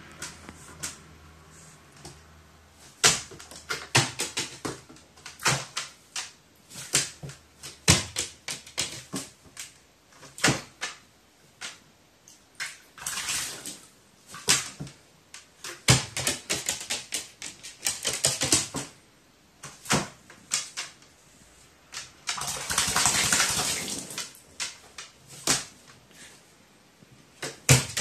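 A crow bathing in a water basin: irregular clicks and knocks against the container, with two longer bursts of splashing, one about halfway through and one near the end.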